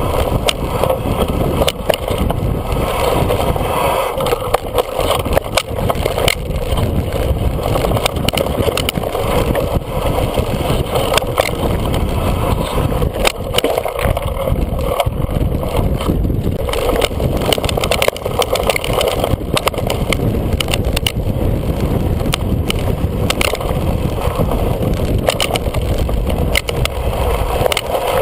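Mountain bike riding down a rough dirt and rock trail: steady wind buffeting the microphone and tyre rumble, with frequent sharp knocks and rattles as the bike bounces over rocks and roots.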